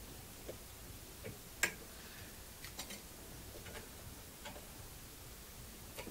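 Faint scattered clicks and ticks of a plastic thermal-paste tube and fingertips pressing the latch of a motherboard's CMOS battery holder while trying to lift the coin cell out, with one sharper click about a second and a half in.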